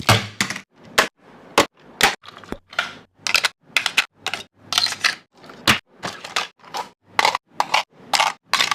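A regular series of sharp cracks, each with a short swish, about two a second, with brief silent gaps between them.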